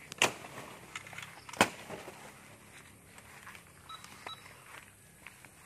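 Two sharp knocks about a second and a half apart, handling noise on the phone as it is gripped. About four seconds in come a couple of faint short beeps from a metal detector being swept.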